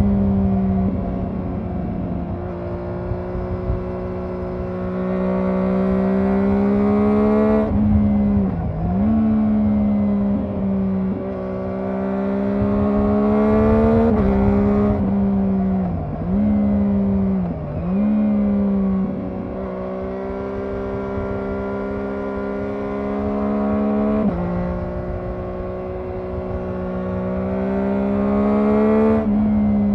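Triumph Daytona 675R's 675 cc inline three-cylinder engine on the stock exhaust, pulling through the gears on the road. The revs hold and rise slowly, dip sharply and recover several times, and jump in pitch a few times, with a low rush of wind and tyre noise beneath.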